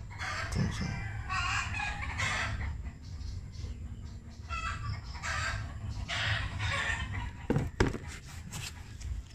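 A bird calling twice, each call about two seconds long, followed by a few sharp knocks near the end.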